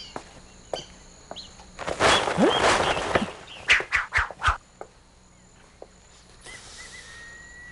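A rushing whoosh of about a second and a half, then a few quick sharp rustles of cloth as a curtain is swept aside, over chirping birds; near the end a bird holds one high steady note.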